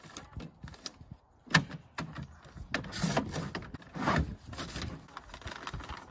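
A paper cutter cutting through a brown paper grocery bag, with one sharp click about one and a half seconds in, the loudest sound. It is followed by the crinkling and rustling of the stiff paper bag as it is handled and pulled apart.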